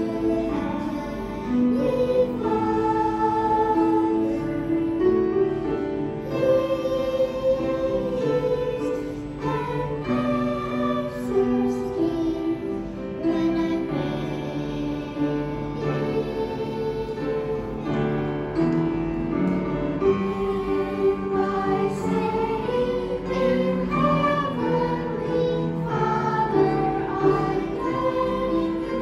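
Children's choir singing a slow, gentle song with musical accompaniment, in long held notes.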